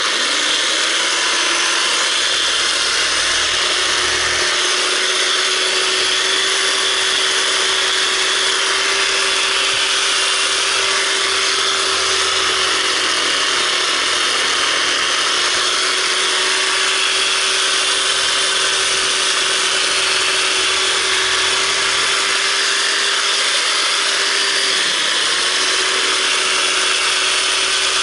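Cordless reciprocating saw running steadily, its blade cutting into a bird carcass. The motor's pitch dips briefly twice, about halfway through and again near the end.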